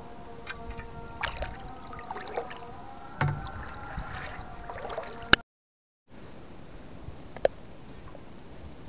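Shallow stream water sloshing and splashing as a fish spear is pushed through the water and weeds, with a few sharp knocks. The sound drops out completely for a moment just past the middle.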